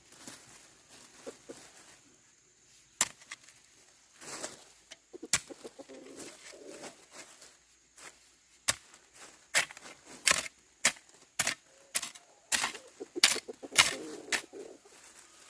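An irregular series of sharp knocks or chopping strikes, a few at first and then coming about one or two a second and louder in the second half.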